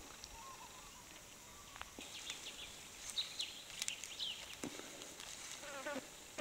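Faint natural bush ambience: a steady high insect hum, a few short bird chirps about halfway through, and scattered light clicks and rustles.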